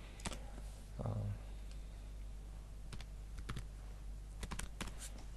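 Computer keyboard keystrokes: scattered single taps, then a quick run of several about four and a half seconds in, over a steady low hum.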